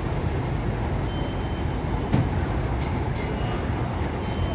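Steady low rumble of a New York elevated subway train running on the el structure. Near the end come a few sharp clicks and brief high squeals from the wheels on the rails.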